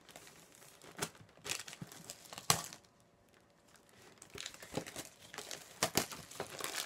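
Plastic wrapping crinkling and tearing as it is pulled open by hand, in uneven spurts with one sharp crackle about two and a half seconds in and a short lull just after.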